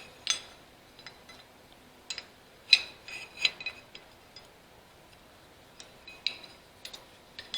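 Light metallic clinks and scraping of a steel bypass rod being threaded up through its bracket: a handful of short, sharp clicks at uneven intervals, some with a brief ring.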